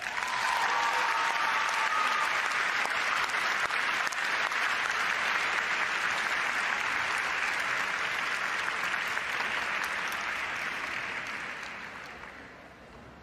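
Audience applauding steadily, dying away in the last second or so.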